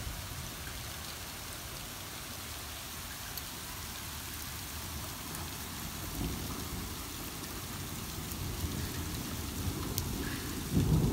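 Rain mixed with hail falling: a steady hiss with a few sharp ticks. A low rumble swells about six seconds in and again, louder, near the end.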